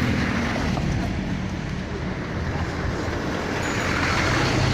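Road traffic: a continuous rush of passing vehicles with low engine hum, easing off about two seconds in and building again toward the end as another vehicle draws near.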